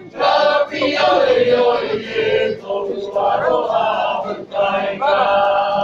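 A group of voices chanting in unison in a welcome chant, in loud phrases with brief breaks between them.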